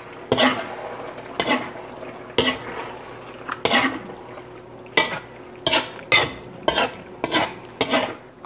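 A utensil stirring a thick pork-innard stew in a metal pot, scraping across the pan in about ten strokes that come quicker in the second half. The stew is being mixed part-way through simmering.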